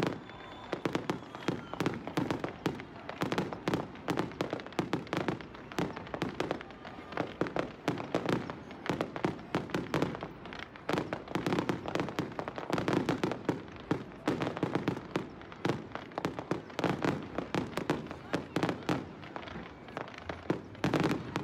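Fireworks display going off in a rapid, continuous barrage of cracks and pops.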